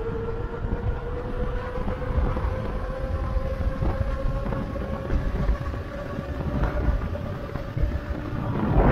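Electric bike motor whining steadily while riding, its pitch slowly rising, over wind rumbling on the microphone. A louder rush of wind noise comes near the end.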